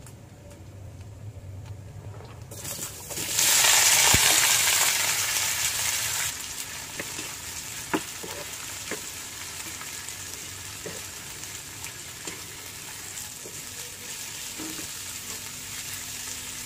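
Chilies, garlic and onions dropped into hot oil in a wok about three seconds in: a loud burst of sizzling that settles within a few seconds into a steady lower sizzle as they are stirred, with a few clicks of the spatula against the pan.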